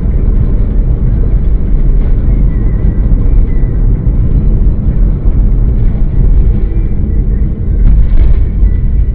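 Steady road and engine rumble inside a moving car's cabin, picked up by a dashcam, with a short click about eight seconds in.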